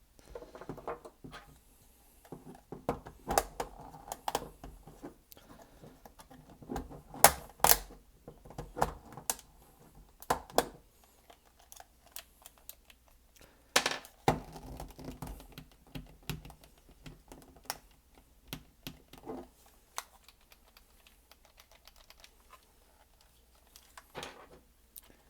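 Irregular plastic clicks, snaps and small knocks of a DualShock 4 controller being taken apart by hand, with a few louder snaps among the lighter clicks.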